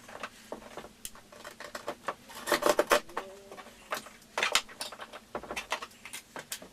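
Irregular clicks and rattles of a kayak rod tube, gasket and hose clamp being handled and fitted, with louder clusters of clatter about two and a half seconds in and again about four and a half seconds in.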